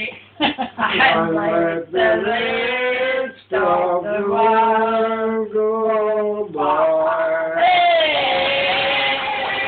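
An elderly man and woman singing together, with long held notes, finishing on a long last note. Close-up hand clapping breaks out under that last note, about three-quarters of the way through.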